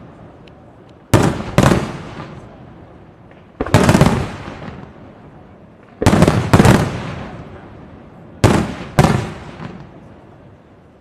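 Aerial firework shells bursting in a pyrotechnic display: loud bangs in quick pairs and clusters, four groups a couple of seconds apart, each fading away in a long echo.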